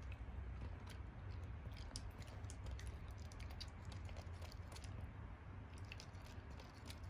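Masked palm civet chewing ripe melon flesh: many small, faint, irregular wet clicks and smacks, over a low steady hum.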